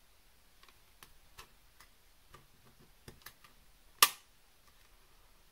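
Light, scattered clicks and taps of watercolor painting tools being handled, with one much sharper, louder click about four seconds in.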